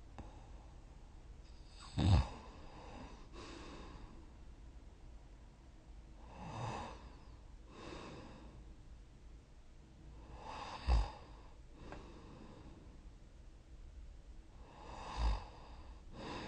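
A person snoring in sleep: about four breaths roughly four seconds apart, each a short snorting snore followed about a second later by a softer breath.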